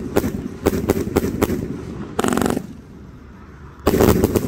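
A 191-shot consumer firework cake firing rapid shots, about five or six a second, each a sharp bang. A short dense rattle comes just after two seconds in, then a lull, then a loud new volley of bangs near the end.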